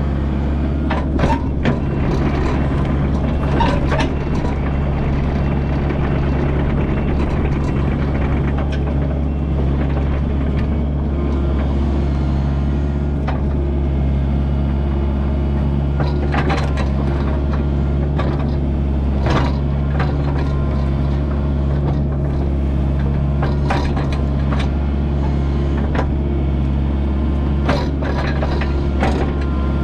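Kubota U55-4 mini excavator's diesel engine running at a steady pitch, with scattered clanks and knocks from the machine's working parts.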